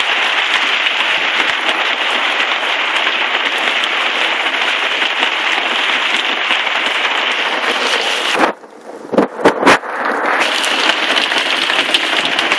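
Heavy rain pouring down with a steady hiss of drops hitting surfaces. About two-thirds of the way through the hiss cuts out sharply for a second or so, with a few sharp pops, then comes back at full strength.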